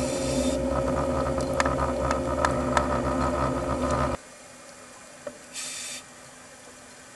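Underwater recording: a steady mechanical hum with a few sharp clicks, which cuts off suddenly about four seconds in. What follows is a much quieter water background with one short hiss.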